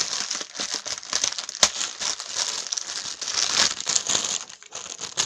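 Clear plastic packaging bag crinkling and rustling as it is pulled open by hand, with one sharp crack about a second and a half in.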